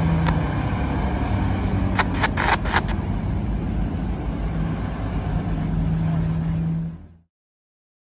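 Fire engine's diesel engine running as the truck drives slowly past, a steady low rumble with a hum, followed by a pickup; a few short sharp clicks come about two seconds in. The sound cuts off abruptly about seven seconds in.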